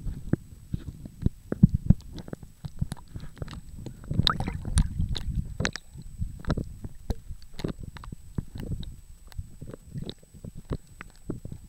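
Seawater sloshing and splashing against a camera as it dips in and out of the surface, heard as muffled low swishing with many irregular clicks and knocks, louder about four to five seconds in.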